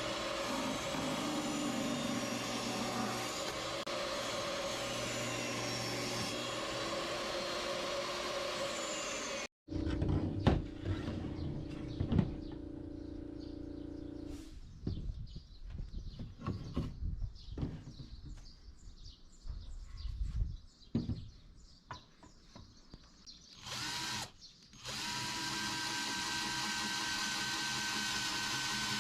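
A power tool running on wood in separate bursts, with abrupt cuts between them. In the middle stretch the tool goes intermittent, with knocks and handling of the workpiece in between.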